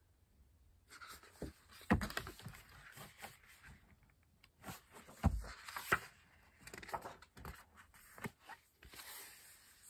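Hardcover picture book being handled and its pages turned: scattered soft paper rustles, taps and knocks at irregular moments, the loudest about two seconds in.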